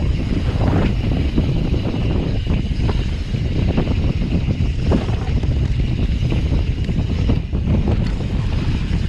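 Wind rushing over the camera microphone as a mountain bike rides fast down a hardpacked dirt trail, with tyre rumble and scattered knocks and rattles from the bike over bumps.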